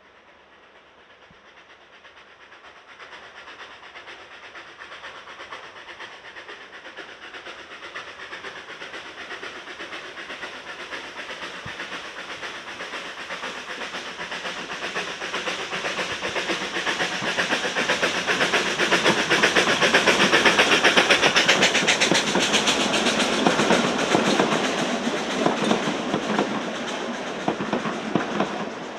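Narrow-gauge steam locomotive and its train approaching, growing steadily louder until it passes about 20 seconds in. The carriages then roll by with a quick rhythmic clatter of wheels on the rails.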